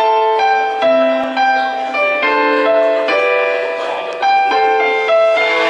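Piano intro to a ballad: a slow melody of single and stacked piano notes, each one struck and then left to ring and fade.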